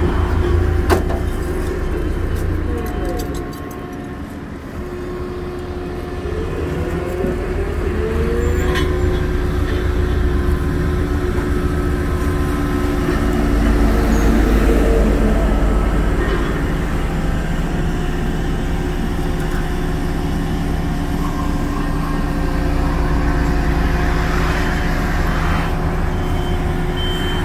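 Heavy diesel truck engine running steadily, its pitch rising briefly a couple of times in the first several seconds, with a sharp click about a second in.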